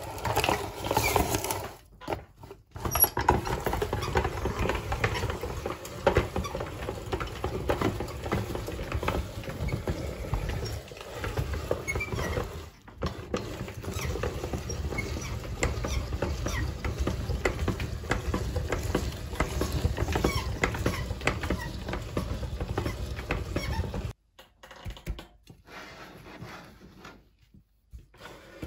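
Hand-cranked cast-metal meat grinder turning, its auger crushing a frozen ice pop and forcing it through the plate: a steady crunching, crackling grind with two short breaks. It stops a few seconds before the end, leaving only faint handling sounds.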